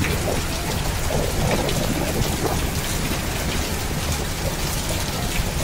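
Heavy rain pouring onto a paved rooftop terrace: a steady, dense hiss of drops splashing on the wet bricks, with a low rumble underneath.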